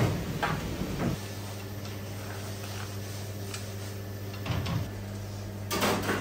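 Light clicks and knocks of hands and food working in a stainless-steel hotel pan, with a cluster of louder knocks near the end. A steady low electrical hum comes in about a second in.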